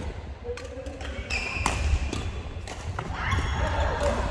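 Badminton rally on an indoor court: several sharp racket strikes on the shuttlecock and players' footwork, with a brief high squeak about a second and a half in.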